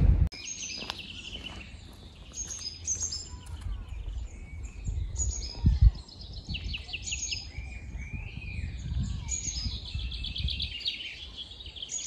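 Several wild songbirds singing and calling in woodland, with quick runs of repeated high notes and trills, over a low rumble. A single thump about halfway through is the loudest sound.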